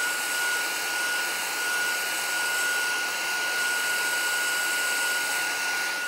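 Handheld craft heat tool running steadily, its fan blowing hot air with a constant high whine from the motor, drying wet ink on paper.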